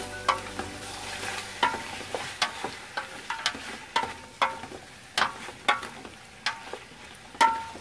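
A black spatula scraping and knocking against the side of a large metal pot as chicken pieces and onions are stirred. The strokes come as irregular sharp clanks, some with a brief metallic ring, over a faint steady sizzle of the chicken sautéing.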